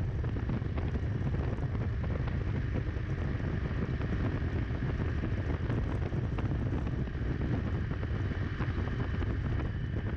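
Wind buffeting the microphone of an action camera mounted on the rear rack of a KTM Duke 390, with the bike's single-cylinder engine and road noise running steadily underneath at highway speed.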